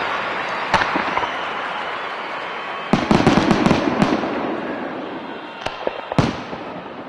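Fireworks going off: a sharp bang about a second in, a rapid run of crackling pops around three to four seconds, and two more bangs near the end, over a hiss that slowly fades.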